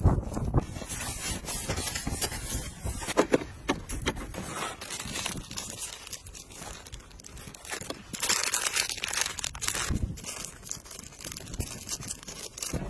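Small RC drift car running and sliding on the ground, its tyres scraping and crackling with scattered clicks, and a longer hissing slide about eight seconds in.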